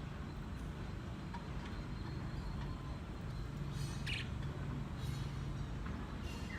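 Pet budgerigars giving a few short chirps, one about four seconds in and another near the end, over a steady low hum.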